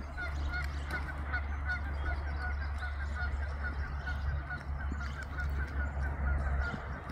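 Repeated short bird calls, about four a second, over a steady low rumble.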